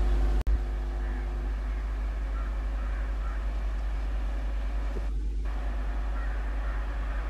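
Steady low rumble of a DEMU diesel multiple-unit train moving slowly around a curve, with the sound cutting out for a split second about half a second in. A few faint crow caws sound over it.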